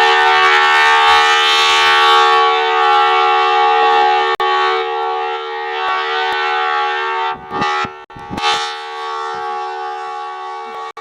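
Outdoor tornado warning siren sounding a loud, steady tone made of two close pitches. It is briefly buffeted by noise on the microphone about seven and a half seconds in.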